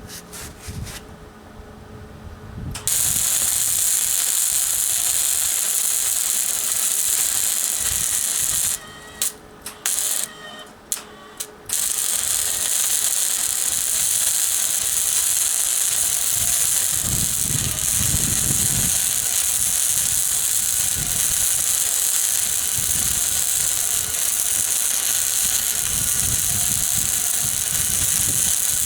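Flux-core arc welding with a Miller 140 wire-feed welder: a steady sizzling arc that starts about three seconds in, breaks off in several short stops and restarts a little before the halfway point, then runs on.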